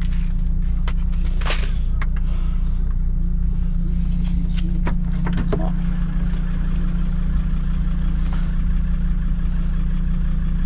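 Car engine idling with a steady low drone, with a few sharp clicks and knocks over it in the first half.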